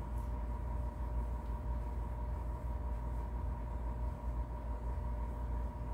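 Steady low rumble with a faint steady hum, under the soft, uneven rubbing of an oiled cloth being scrubbed around inside a motorcycle cylinder bore.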